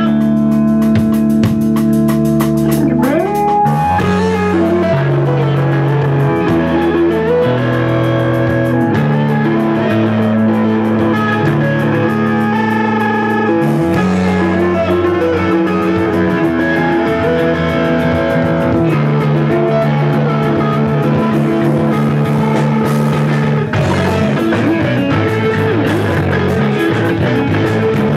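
Live rock band playing: electric guitars, bass guitar and a Tama drum kit. Held guitar notes change every second or two, with a rising slide about three seconds in.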